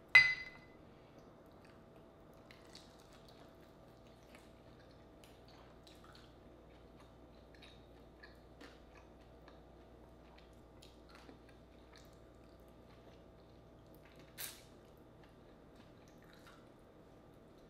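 A single sharp clink with a short ring right at the start as a frog leg is dipped into a small glass bowl of sauce. After it come faint small clicks and wet sounds of fingers picking meat off fried frog legs and of chewing, with one brief louder crackle about fourteen seconds in.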